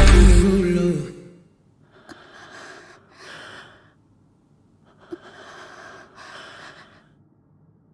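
Backing music fades out within the first second, then a person breathing: four breathy sounds in two pairs, like an in-and-out breath taken twice.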